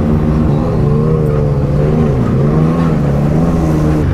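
Can-Am Maverick X3's turbocharged three-cylinder engine heard from the cab, running at low speed while the throttle goes on and off, so the engine note keeps rising and falling. The pitch dips briefly about two seconds in and again near the end.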